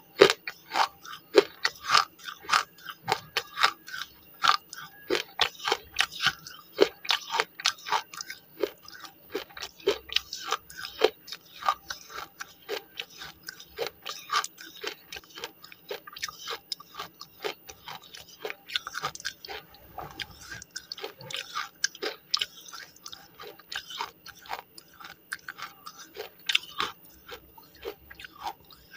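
Slate pencil being crunched and chewed in a person's mouth, close to the microphone: an unbroken run of sharp, gritty crunches, several a second.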